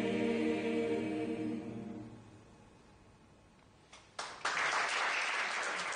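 A mixed choir's held final chord fades away over the first two seconds. After a short hush, a couple of single claps sound about four seconds in, then audience applause breaks out.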